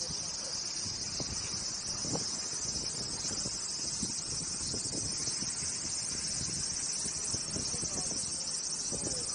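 Steady, high-pitched chorus of insects shrilling without a break, with a few faint soft knocks underneath.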